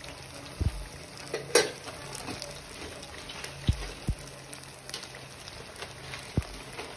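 Breaded pork fillets deep-frying in a pan of hot oil, sizzling and crackling steadily with scattered sharp pops. A few short, dull low thumps are heard through it.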